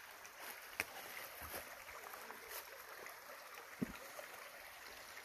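Small shallow creek trickling over rocks, faint and steady. Two brief clicks stand out, about a second in and again about four seconds in.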